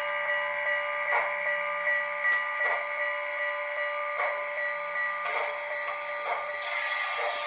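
ESU sound decoder in an HO scale model of Canadian National steam locomotive 6060, playing steam sounds through its small speaker: a steady hiss with held tones, broken by irregular clicks. A higher tone comes in near the end.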